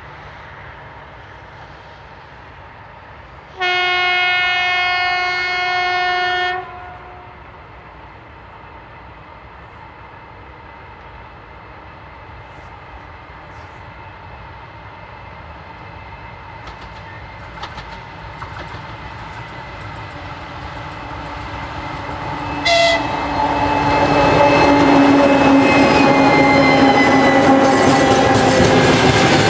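2TE116 twin-section diesel locomotive sounding one long horn blast, about three seconds, a few seconds in. Its diesel engines then grow louder as it nears, with one short sharp sound just before it passes, and their pitch drops as it goes by. Its loaded freight wagons follow, rolling past with a clickety-clack of wheels over rail joints.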